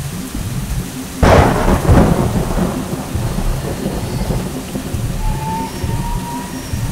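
Steady rain with a sudden thunderclap about a second in that rolls away into low rumbling.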